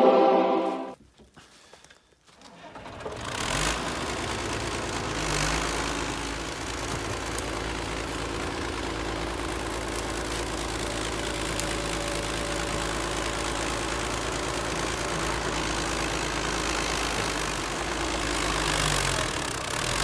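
Intro music ends about a second in; after a brief silence, a crawler bulldozer's diesel engine starts to be heard about three seconds in and runs steadily under load as the dozer pushes brush and soil with its blade.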